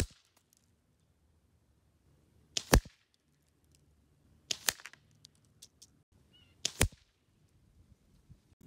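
Benjamin Trail NP Mark II .177 break-barrel nitro-piston air rifle firing four sharp shots about two seconds apart.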